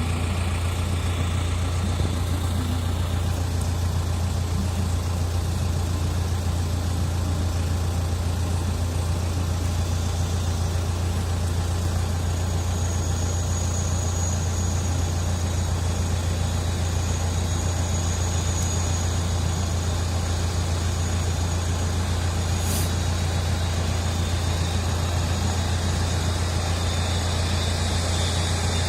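Steady low engine hum that does not change, with a faint high whine in the middle and one short click near the end.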